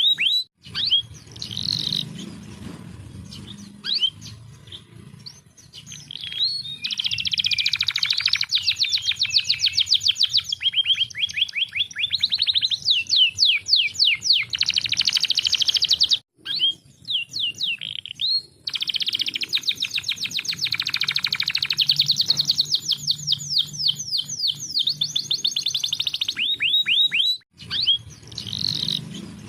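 Domestic canary singing long, fast rolling trills and chirps in phrases of several seconds, broken by a few abrupt cuts, with a faint low hum beneath.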